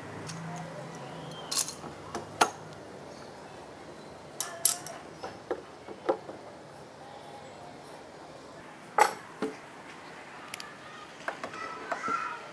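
Irregular sharp metal clinks and knocks of steel bar clamps being fitted and tightened on a wooden board, and of a cordless drill's chuck being fitted onto a meat grinder's drive shaft.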